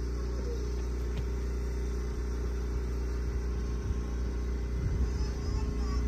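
An engine running steadily at an even speed: a low, constant hum.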